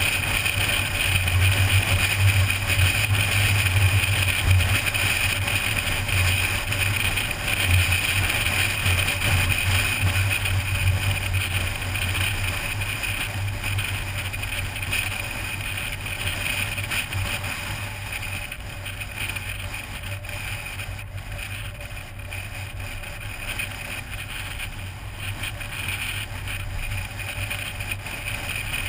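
Steady road and wind noise of a car driving along a highway, with a low hum running underneath. It grows quieter in the second half as the car slows on town streets.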